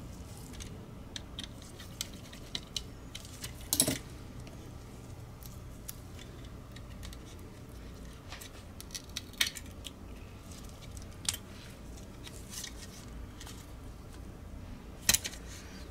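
Light clicks and taps of small plastic mouse parts being handled and fitted together by hand, with a few sharper knocks about four seconds in, twice in the middle and near the end, over a faint steady low hum.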